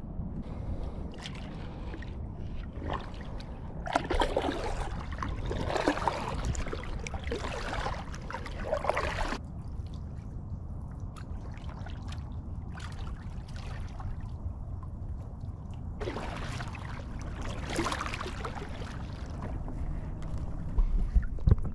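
Kayak paddle strokes in water: splashing and trickling in two stretches, starting about four seconds in and again about sixteen seconds in, over a steady low rumble.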